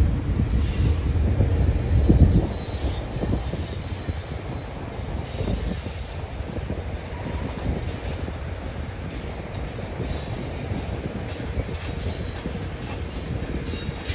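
Freight train's tank cars and covered hopper cars rolling past, steel wheels rumbling on the rails, louder for the first two seconds or so. Short high wheel squeals come through a few times.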